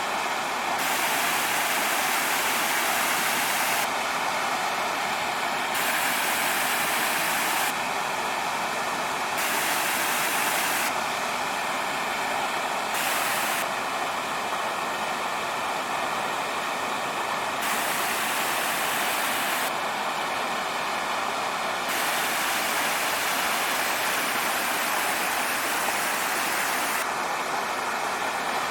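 Small waterfall on a creek, a steady rush of falling water.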